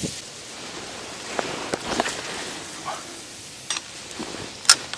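A few sharp clicks and taps of feeder-fishing tackle being handled, the loudest near the end, over a steady background hiss.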